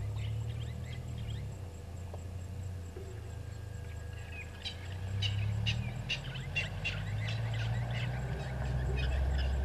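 Blacksmith lapwing giving its sharp, metallic 'tink' alarm call, a run of clicking notes about three a second that starts a little under halfway in and lasts about four seconds; this is the call an adult gives when defending its chicks. A low steady rumble runs underneath.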